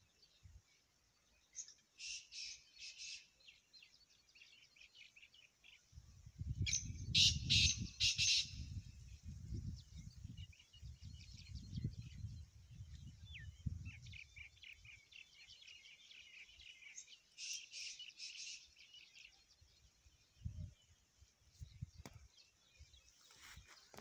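Black francolin calling: three short bouts of quick loud notes about ten seconds apart, the loudest about seven seconds in. Smaller birds chirp between the bouts, and a low rumble runs through the middle stretch.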